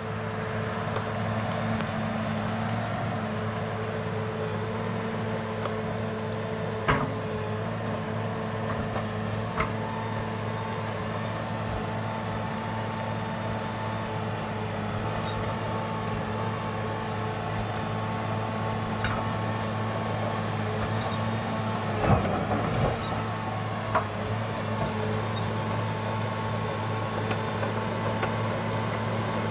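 Caterpillar 963C track loader's diesel engine running steadily as the machine pushes its bucket through sod and topsoil, with a few sharp metal clanks, the loudest about two-thirds of the way through.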